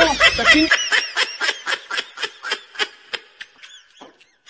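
Cartoonish laughing sound effect: a rapid, even run of short, high-pitched squeaky notes, about four a second, fading away over about three seconds. Under a second in, the lower background sound before it cuts off abruptly.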